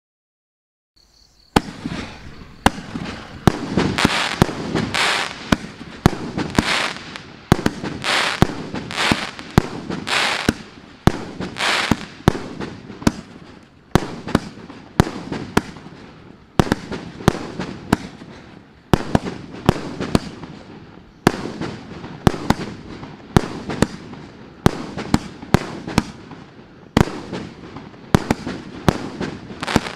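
A Maxsem Paradise Island 49-shot, 1.5-inch firework cake firing. It is silent at first, then from about a second and a half in the shells launch in quick succession, each with a sharp bang followed by the burst and a fading crackle.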